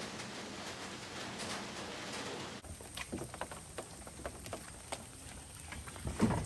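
Steady hiss of heavy rain. About two and a half seconds in, it gives way abruptly to a quieter background of scattered taps and drips, with a louder thump near the end.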